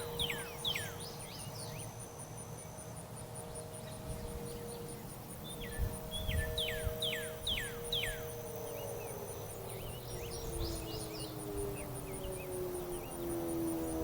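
Distant storm siren wail: a held tone that starts to slide down in pitch a little past halfway and begins to rise again near the end. Over it a bird sings bursts of quick down-slurred whistles three times, and an insect keeps up a faint, even ticking at about three a second.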